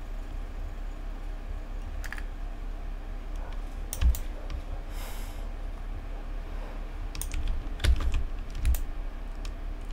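Computer keyboard being pressed in a few scattered keystrokes, the loudest about four seconds in and several more near the end, over a steady low hum.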